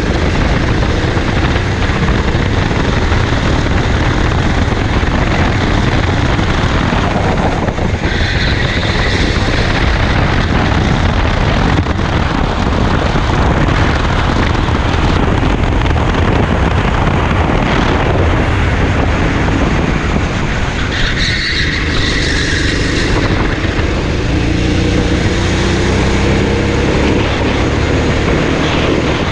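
Racing kart engine running hard, heard from a camera mounted on the kart, its loud buzzing note dipping and rising as the kart goes through the corners.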